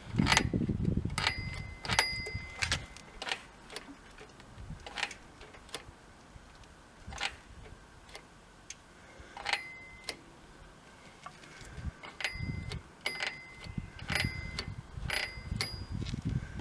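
Irregular metallic clicks and clacks from a vintage Altenburger Synchron caliper brake on a bicycle's front wheel being worked, its arms snapping open and shut; several clicks leave a short ringing tone. The brake has just been lubricated with WD-40 and now moves freely.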